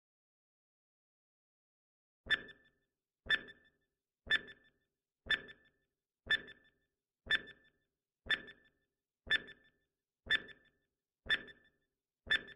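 Quiz countdown timer sound effect: after a silent pause, sharp clock-like ticks start about two seconds in and come once a second, eleven in all.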